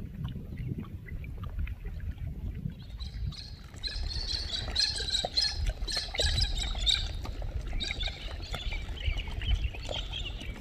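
Low rumble of wind on the microphone, and from about three seconds in, many small birds chirping and twittering over it.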